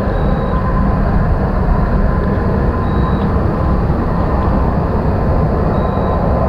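Steady low industrial din from the Zug Island steel works across the river: a continuous rumble with a constant hum, and faint short high beeps about every three seconds.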